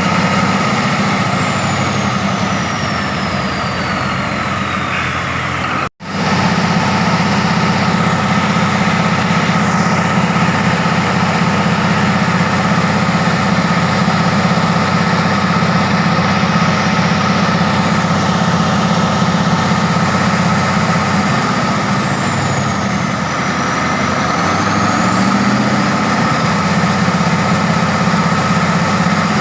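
Caterpillar 3508 V8 diesel engine running steadily on a test run after an overhaul. The sound cuts out for an instant about six seconds in.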